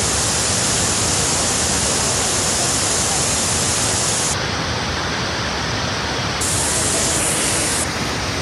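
Steady rush of Niagara's Horseshoe Falls, a constant, even noise of falling water and spray, loud and without pauses.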